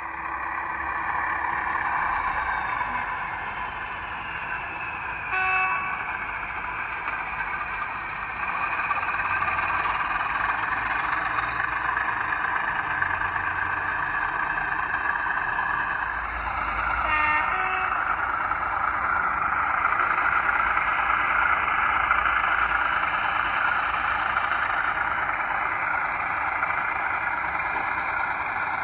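Recorded Class 14 diesel-hydraulic locomotive sound played through a OO gauge model's small speaker from a Zimo DCC sound decoder: the engine runs steadily and grows louder around eight and sixteen seconds in, with two short horn blasts about five and seventeen seconds in.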